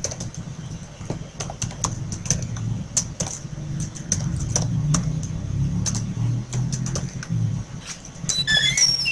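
Computer keyboard being typed on: a quick, irregular run of light key clicks, over a low murmur in the background. A few short high chirps come near the end.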